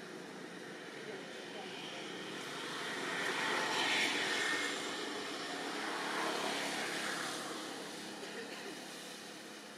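A distant engine sound that swells to a peak about four seconds in and then fades away, like something passing by.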